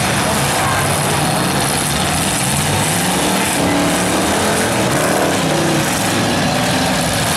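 Several demolition derby cars' engines running together in a steady, loud din, with some revving as the cars manoeuvre and push against each other.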